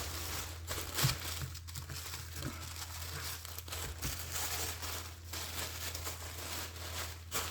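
Paper and packaging being handled and folded, with irregular crinkling and rustling as a journal kit is wrapped up.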